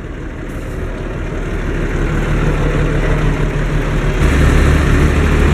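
A 1968 Unimog 406's six-cylinder diesel and its single-row PZ maize chopper running, growing steadily louder. A steady low hum joins about two seconds in, and a deeper one a little past four seconds.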